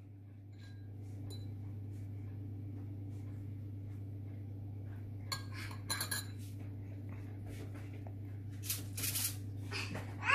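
Light metal clinks against a stainless-steel mixing bowl as biscuit dough is shaped, a few short clicks about five to six seconds in and again near nine seconds. Under them runs a steady low hum that comes up about a second in.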